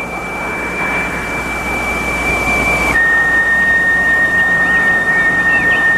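Film score: a single high held note that steps down to a slightly lower held note about three seconds in, over a steady hiss.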